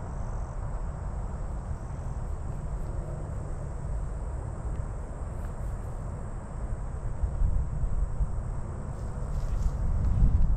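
Insects chirring steadily in a grassy field over a low rumble of wind on the microphone. The rumble grows louder near the end.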